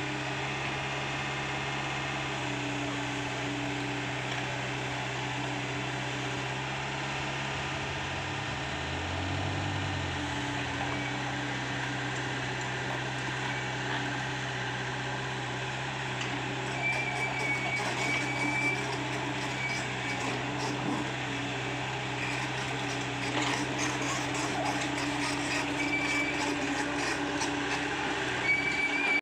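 Komatsu PC75UU compact excavator's diesel engine running steadily, its pitch dipping and shifting briefly about a third of the way in. In the second half, rattling, clanking and short high beeps come in over the engine.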